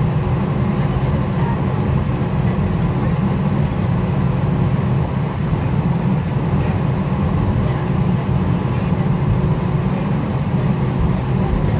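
Cabin noise inside a Boeing 737-900ER taxiing: a steady low rumble from the engines and rolling airframe, with a faint steady hum above it.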